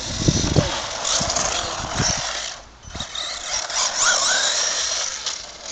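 Small electric RC car driving over gritty tarmac: a steady high hiss of tyres and motor, with a brief rising whine about four seconds in. A few low thuds in the first half-second.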